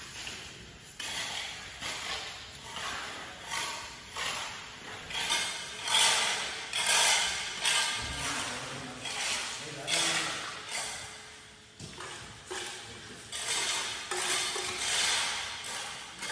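Steel trowels scraping and swishing over a wet cement floor in repeated short strokes, about one a second.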